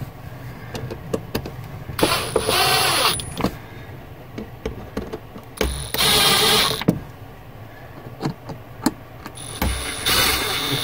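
Cordless drill/driver running in three short bursts of about a second each, driving screws, with light clicks of handling and the bit between the runs.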